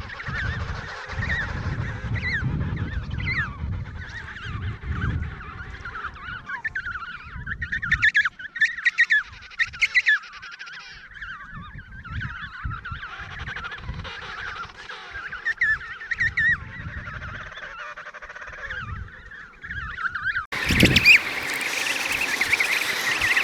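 Emperor penguin colony calling: many overlapping honking calls, with low rumbling under them in the first several seconds. About three-quarters of the way in it cuts abruptly to a louder, denser chorus of calls.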